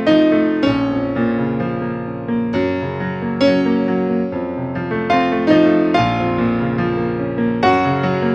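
Synthesizer keyboard playing a melody over bass notes and chords in a piano-like voice, each note struck and fading.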